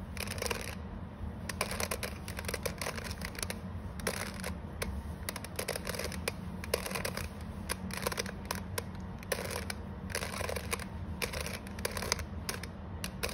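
Plastic 3x3 Rubik's cube being turned by hand, its layers clicking and clacking in quick, irregular runs as the right-hand R U R' U' move sequence is repeated.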